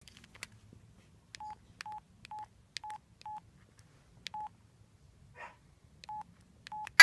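Samsung SCH-a950 cell phone keypad: about eight button presses at uneven intervals, each a small click followed by a short single-pitch beep. A brief rustle comes just past the middle.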